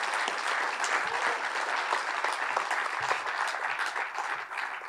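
Audience applauding steadily, the clapping starting to die down near the end.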